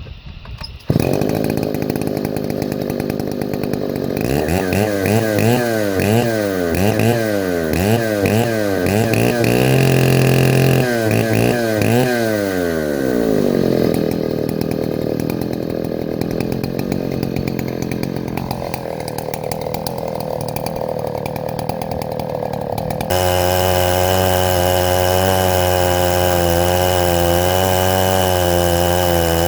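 Two-stroke engine of a Chinese clone of a Stihl 070 chainsaw on an Alaskan chainsaw mill, tuned really rich for break-in. The throttle is revved up and down about once a second, then the saw runs steadily. About two-thirds through, the sound changes abruptly to a steady, even run.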